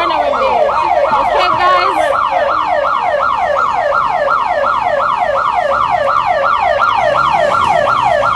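Electronic siren wailing in rapid, evenly repeated falling sweeps, about three a second.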